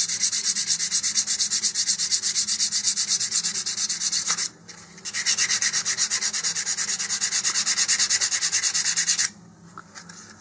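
Sandpaper rubbed by hand over a polyethylene model-rocket nose cone in quick back-and-forth strokes, several a second, scuffing the plastic so paint will adhere. The rasping pauses briefly about four and a half seconds in, resumes, and stops a little after nine seconds.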